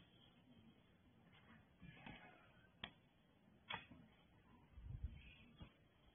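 Near silence, broken by three faint, sharp clicks in the middle and a faint low rumble near the end.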